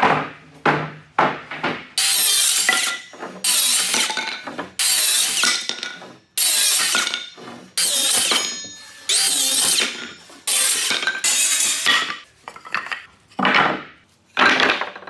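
A few sharp wooden knocks as boards are handled. Then a cordless circular saw makes a run of short crosscuts through a wooden strip: about ten harsh bursts of a second or so each, with short pauses between them and the motor's pitch shifting under load.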